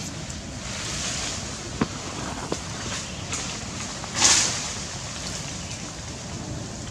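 Wind buffeting the microphone in a steady rumbling rush, with two faint clicks and one short, harsh burst of noise about four seconds in.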